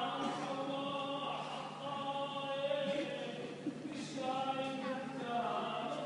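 Voices chanting a church hymn in long held notes, with a new phrase beginning about four seconds in.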